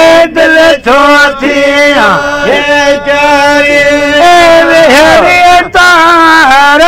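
Men singing a traditional folk chant together in long held notes, one voice holding a steady note while another slides up and down around it, with short breaks for breath between phrases.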